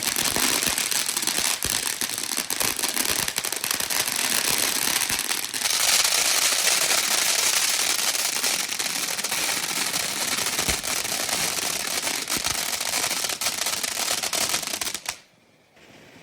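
A string of firecrackers going off in a rapid, unbroken crackle that turns sharper about six seconds in, then stops suddenly about a second before the end.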